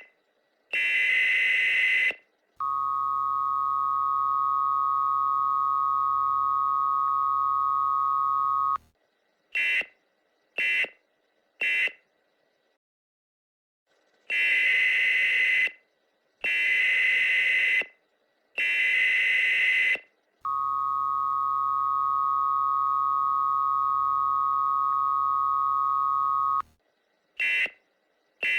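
US Emergency Alert System tones played back sped up to 1.3 times normal speed, so everything is raised in pitch and shortened. The cycle runs twice: raspy digital header bursts, then the two-tone attention signal held steady for about six seconds, then three short end-of-message bursts and a pause. There is no spoken message.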